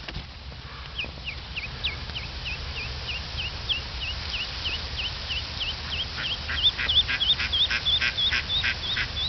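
Duckling peeping over and over, each call a short high note that drops in pitch. The calls come about two a second at first, then faster and louder from about six seconds in.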